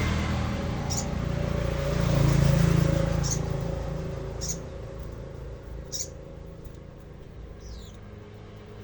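Sogon bird calling with short, high chirps spaced a second or more apart, five or so, one of them a falling slur near the end, over a low rumble that swells around two to three seconds in.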